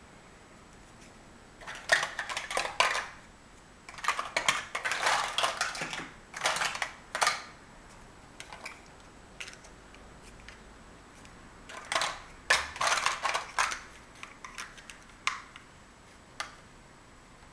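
Large plastic Mega Bloks First Builders blocks clattering and clicking as they are handled and pressed together onto a stack. The clicks come in three bursts of rapid knocks with a few single clicks between them.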